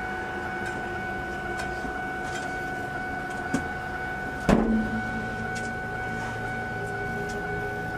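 Steady mechanical hum inside a parked 1999 Ford Mustang GT, with a single sharp knock about halfway through. After the knock a lower steady hum comes in.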